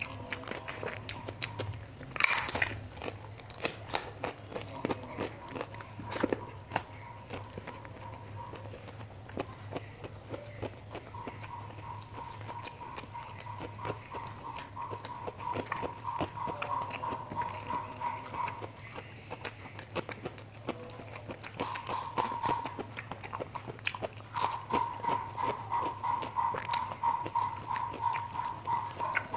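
Close-up chewing and crunching of fried rice and onion crackers eaten by hand, with many small wet clicks and one loud crunch about two seconds in.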